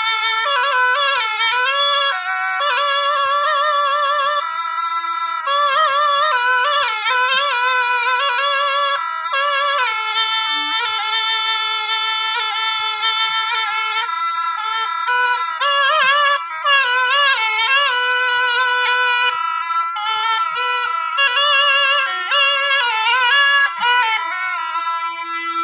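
Rajasthani folk music: a reedy, heavily ornamented melody that wavers and bends over a steady drone, with no break for the whole stretch.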